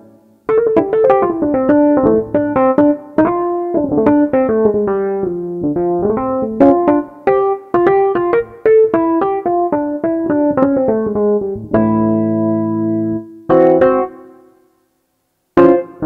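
Roland GR-20 guitar synthesizer's 'Hard Rhodes' electric piano patch, played from a MIDI guitar: a quick run of single notes that falls and then climbs again for about eleven seconds. It is followed by two held chords, a brief silence, and a new chord struck right at the end.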